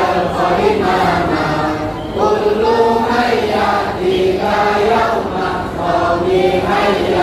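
A group of men singing together in unison, an anthem-like chant sung without pause.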